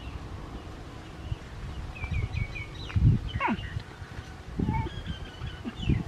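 Short high-pitched animal chirps and a falling squeal, over low thumps and rustling.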